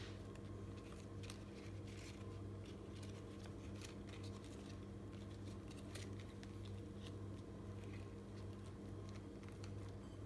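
Light crackles and rustles of fresh basil leaves and bread being handled and pressed together into a sandwich, as many small scattered ticks, over a steady low hum.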